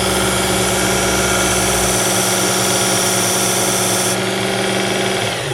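Work Sharp Ken Onion Edition belt sharpener running with its fine X4 belt: a steady motor hum with the hiss of the abrasive belt as a knife blade is ground. The hiss changes about four seconds in, and near the end the motor is switched off and its pitch falls as it winds down.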